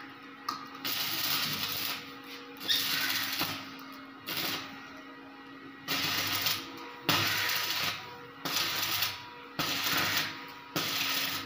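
Electric stick (arc) welder crackling and hissing in a series of short welds, about a second each and roughly nine in all, as the steel wire mesh of a cage is tack-welded. A steady electrical hum runs underneath.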